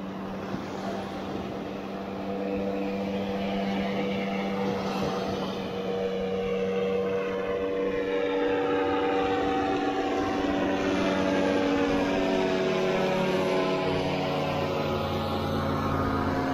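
Aircraft engine droning overhead, a steady hum whose pitch drifts slowly as it grows louder.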